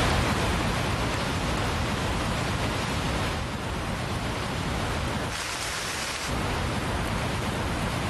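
Steady heavy rain, an even hiss without a break.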